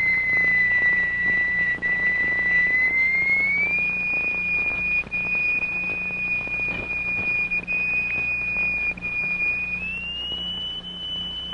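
A steady, high pure tone, the test note used to vibrate a plate and raise sand figures on it, rising to a higher note about three and a half seconds in and again near the end.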